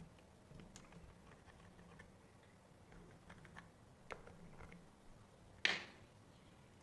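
Faint, scattered light clicks and taps of small parts being handled on a workbench, with one short, louder scraping hiss about five and a half seconds in.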